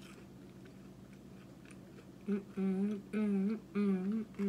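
Quiet chewing with small mouth clicks. About two seconds in, a woman starts humming a tune with her mouth closed, a run of short held notes.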